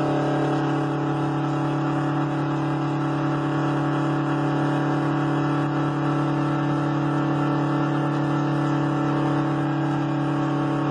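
Straight-piped 8V71 Detroit Diesel two-stroke V8 in a 1980 GMC General semi truck, running loud and steady at an unchanging engine speed, as at a highway cruise.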